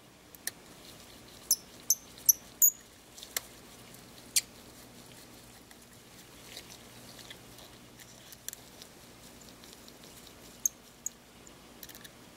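Scattered small clicks and short high squeaks of a precision screwdriver driving tiny screws into the end of a Panasonic Lumix ZS19 compact camera, bunched in the first few seconds, then sparse.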